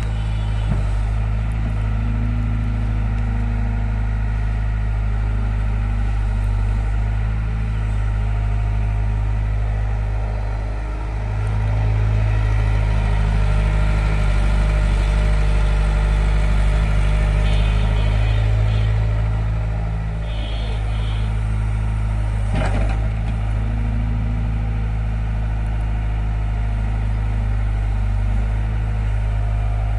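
Diesel engines of earthmoving machinery running steadily, swelling louder for several seconds in the middle, with a single sharp knock about two-thirds of the way through.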